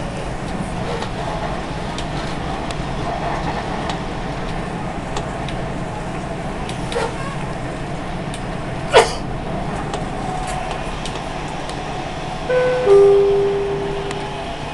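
Steady running noise inside a moving Dubai Metro car, with a short sharp click about two-thirds of the way through. Near the end a two-note falling chime sounds: the onboard signal that comes before the next-station announcement.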